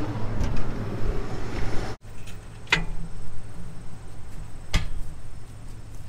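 Low, steady engine hum, with a brief dropout about two seconds in and two sharp knocks about two seconds apart after it.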